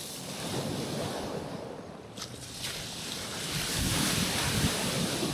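Caribbean waves washing onto a rocky shoreline, a steady surf wash that swells louder over the last couple of seconds as a wave comes in. Wind buffets the microphone with a low rumble near the end.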